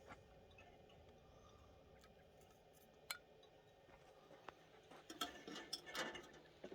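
Quiet room tone with a single sharp click about three seconds in, then a short run of light clinks and knocks of glass canning jars and the pressure canner being handled.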